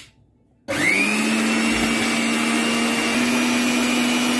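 Electric mixer grinder with a stainless steel jar grinding chickpeas, garlic and spices into a paste. After a short click, the motor starts under a second in, quickly spins up and runs at a steady pitch with a high whine.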